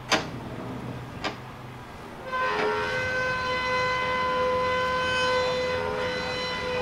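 Two sharp knocks, then an air horn sounding one long steady chord that starts about two seconds in and holds for over four seconds.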